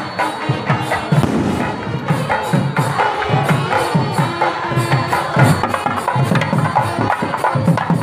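Percussion music with a fast, steady beat, heard amid a walking procession crowd.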